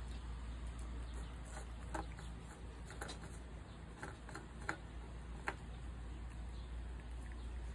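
A cat eating dry kibble from a ceramic plate: a handful of separate sharp crunches and clicks, the loudest two near the middle, over a steady low hum.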